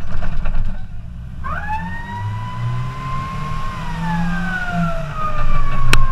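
Fire-rescue vehicle's siren coming on about a second and a half in: a quick rise into a wail that climbs slowly, then falls slowly, over the vehicle's engine as it drives. A sharp click near the end.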